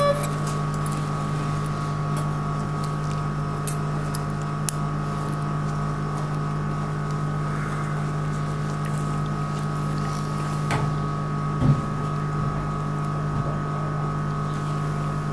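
Steady machine hum with several held tones, from operating-room equipment, at an even level, with a few faint light clicks from the metal suturing instruments.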